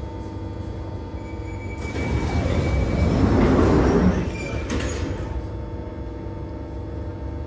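Jubilee line train doors and platform screen doors closing over the steady low hum of a waiting 1996 Tube Stock train: a thin warning tone, then a rising rush of sliding doors that peaks and stops abruptly about four seconds in, followed by a short clunk.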